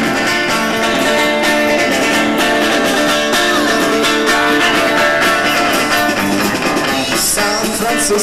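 Live rock band playing an instrumental passage without vocals: electric guitar with drums.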